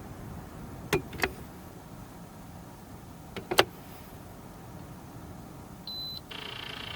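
A few sharp clicks, then a short high electronic beep near the end, followed at once by a small electric appliance starting up with a steady high whine.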